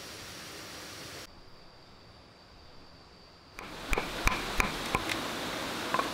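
Steady forest hiss with a faint, high, steady insect drone. From about four seconds in, a knife blade chops into a green bamboo tube: about six sharp cracking strikes as a notch is cut out.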